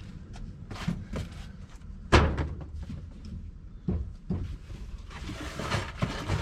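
A series of knocks and thumps as junk is handled and dropped, with one sharp bang about two seconds in and a few lighter knocks later.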